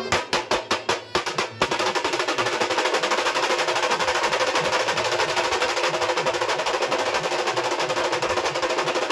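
Khalu baja band's barrel drums beaten with sticks: a run of loud unison strokes, about seven a second, a brief break, then from under two seconds in a fast, continuous drum roll.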